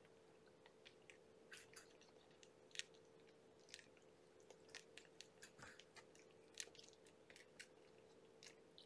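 Kittens suckling at their mother cat: faint, irregular wet clicks and smacks, several a second, over a faint steady hum.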